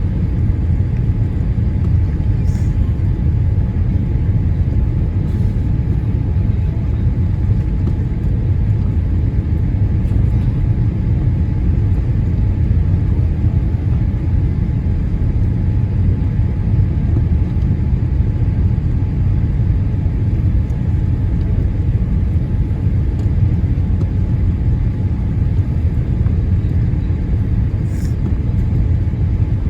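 Cabin noise inside a Boeing 787-8 rolling on the ground after landing: a steady low rumble of the wheels and airframe, with a faint steady whine above it.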